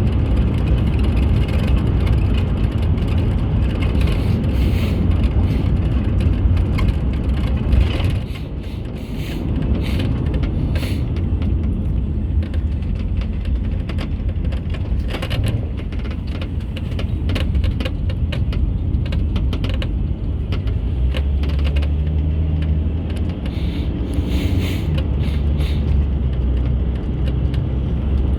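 A car driving along a road: a steady low rumble of road and engine noise.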